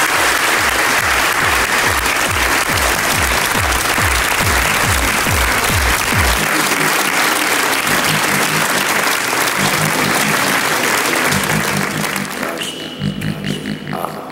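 Audience applauding, with music playing underneath and a low pulsing beat; the applause fades out about twelve seconds in, leaving the music.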